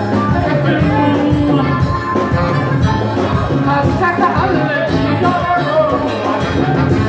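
Live band music: a male singer singing into a microphone over electric bass and hand drums, with a steady beat.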